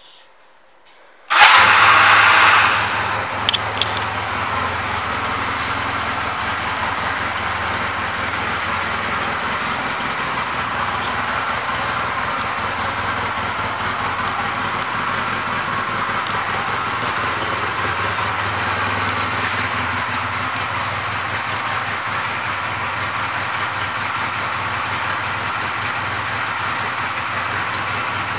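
2009 Honda Rebel's 234 cc air-cooled parallel-twin engine starting about a second and a half in, loud for a moment as it catches. It then settles into a steady idle.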